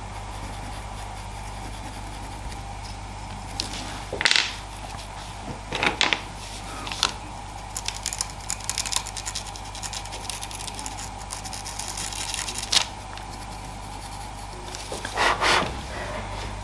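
Faber-Castell Pitt pastel pencil shading in small strokes on Pastelmat paper: faint scratching and ticking of the pencil tip, with a couple of louder brief brushing rustles, about four seconds in and near the end, over a steady background hum.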